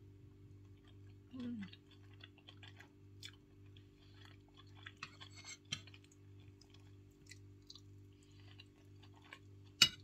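Quiet chewing, with scattered soft clicks of a fork against a plate and one sharper clink near the end; a brief hummed "mm" sounds about a second and a half in. A steady low hum runs underneath.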